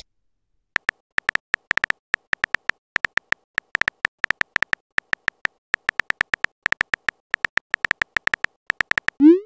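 Rapid, irregular tapping of a texting app's keyboard sound effect, each tap a short tick with a faint beep, as a message is typed out. Right at the end comes a short rising whoosh, the app's message-sent sound.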